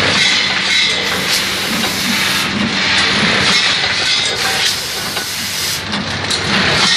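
Rotary pouch filling and sealing machine running: steady mechanical clatter with repeated hisses of compressed air from its pneumatic actuators, swelling a few times.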